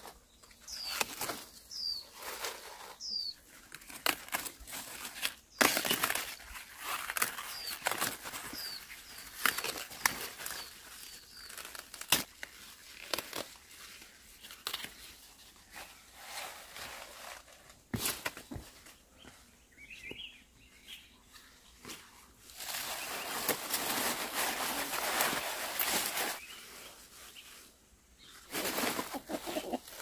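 Leafy greens rustling and crackling as they are picked and bundled up, with bursts of leaf noise and stems snapping. A few short bird chirps sound in the first few seconds.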